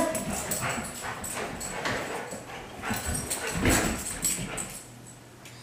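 A dog gives a short whine at the start, then paws and boots shuffle and knock on the floor with rustling, a few heavier thumps about two-thirds of the way through, as the dogs jump about.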